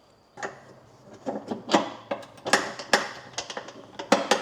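A run of sharp metal clicks and knocks from the pins and brackets of a rooftop tent mount being worked by hand, starting about half a second in, the loudest near the middle and near the end.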